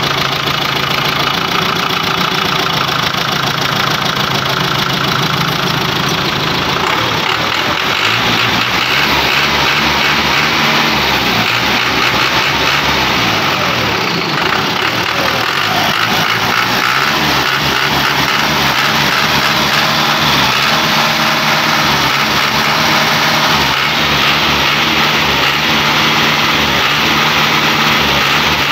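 Fiat 640 tractor's four-cylinder diesel engine running, its speed rising and falling a few times about a quarter to halfway through, then settling into a steady run.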